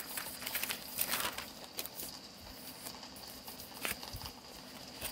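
Thin Bible pages rustling as they are turned by hand: several soft swishes in the first second and a half, then a light tap about four seconds in.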